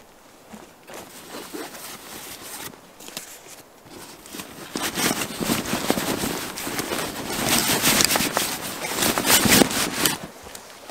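Nylon backpack being handled: crackly rustling of the fabric and webbing straps with small clicks, sparse at first and growing denser and louder about halfway through before easing off near the end.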